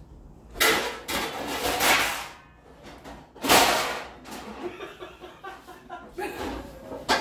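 A storage drawer beneath an oven sliding and pots and pans clattering as someone rummages for a cast iron skillet, in several separate scraping, clanging bursts.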